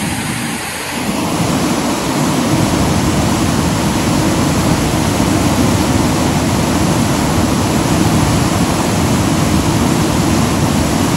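Steady roar of the flooding Bagmati River, its swollen, muddy water rushing past the bank, with rain mixed in. It grows louder about a second in and then holds steady.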